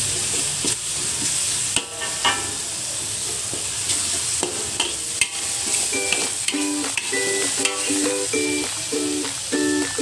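Ground red chili paste sizzling as it fries in oil in a metal pan, stirred and scraped with a metal spatula in frequent short strokes. Background music with a repeating tune comes in about six seconds in.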